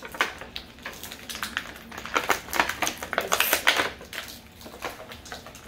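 Clear plastic packaging tray crinkling and clicking in the hands as an action figure is pried out of it: an irregular run of sharp crackles, busiest in the middle.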